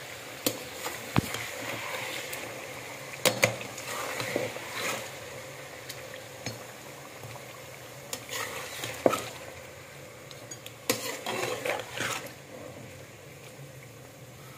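A metal spatula stirs chicken pieces and ginger-garlic paste in a metal pot, clinking and scraping against the pan in scattered knocks. Underneath is a steady low sizzle of the chicken frying in oil.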